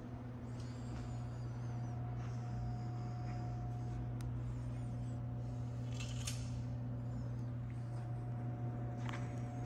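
Steady low background hum of room tone, with a few faint short clicks from handling about four and six seconds in.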